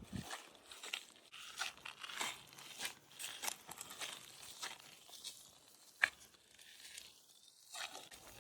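Irregular rustling and crunching of dry leaves and twigs, with one sharp click about six seconds in.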